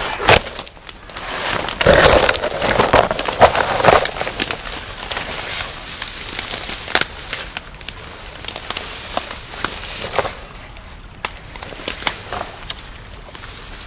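Branches and twigs rustling, snapping and crackling as someone forces a way through dense brush. It is densest about two to four seconds in, then thins to scattered snaps.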